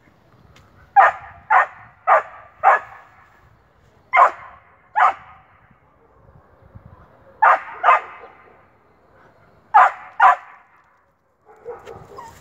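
Dog barking in short runs of sharp barks, about ten in all in pairs and groups of four, in excited barking at a squirrel. A softer, lower sound comes in near the end.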